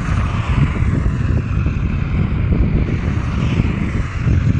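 Wind buffeting the microphone over a steady rush of road traffic, swelling twice: just after the start and again about three and a half seconds in.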